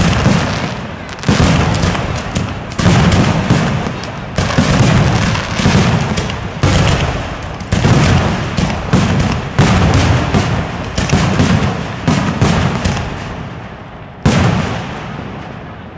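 Aerial firework shells bursting in quick succession, one sharp bang after another, each with an echoing tail. The bangs thin out toward the end, with one last burst a little after the lull begins.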